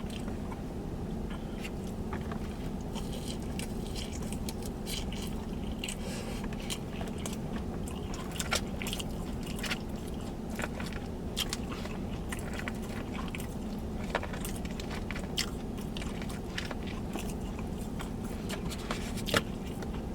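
Close-miked chewing and biting of crunchy fried food: a string of short crackly crunches and mouth clicks over a steady low hum.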